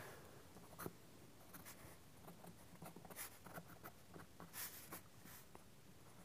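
Soft 7B graphite pencil drawing on sketching paper: faint, short strokes at irregular intervals, one a little louder about four and a half seconds in.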